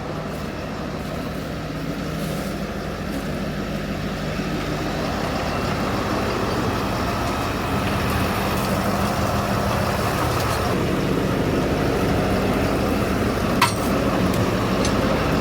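Ford F-550 truck with a 6.7-litre Power Stroke V8 diesel running, a steady sound that slowly grows louder, with a brief click near the end.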